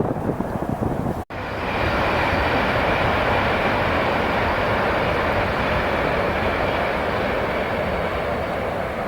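Chinese high-speed bullet train running past at speed: a steady rush of air and wheel noise with a faint high whine, after a short break about a second in. Wind buffets the microphone before the break.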